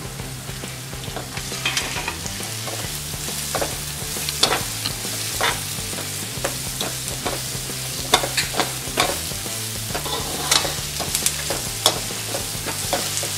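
Shredded vegetables stir-frying in oil in a metal kadhai (wok): a steady sizzle, broken by frequent sharp scrapes and clicks of the spatula against the pan.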